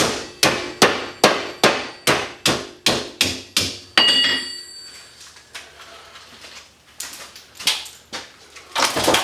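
Hammer blows on an arc fault circuit breaker's casing to break it open for scrap: a steady run of sharp strikes, about two and a half a second, ending in a harder hit with a brief metallic ring about four seconds in. A few softer knocks follow, then a louder burst of knocks near the end.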